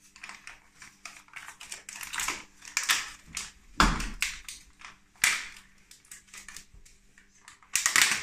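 A plastic margarine tub being handled and opened: the lid and seal crackle and click, with a sharp knock about four seconds in and another short clatter near the end.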